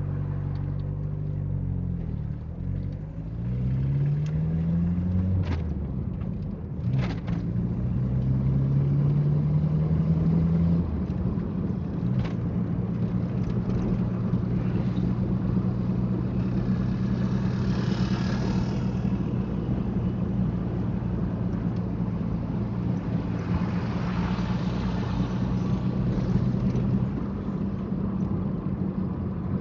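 Car engine heard from inside the cabin as the car accelerates, its pitch rising twice with a drop in between, then holding steady at cruising speed. A few sharp clicks come early on, and road and traffic hiss swells up twice later.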